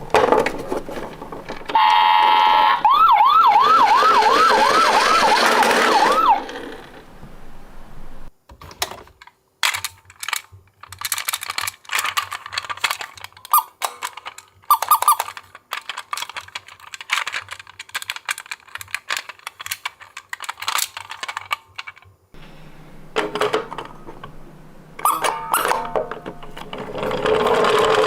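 Toy minicar's electronic siren: a steady tone, then a fast up-and-down yelp for a few seconds that cuts off. After it come many small plastic clicks and rattles from the miniature cars being handled, with a few short tones among them.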